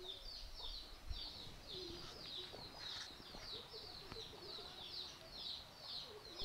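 Birds chirping: a steady, rapid run of short, high, down-slurred notes about three a second, with fainter, lower calls beneath.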